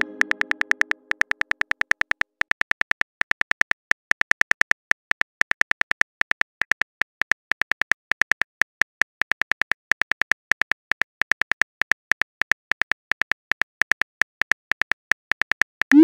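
Rapid clicks of a texting app's simulated phone-keyboard typing sound, about six a second, uneven like fast typing. A pitched chime fades out over the first second.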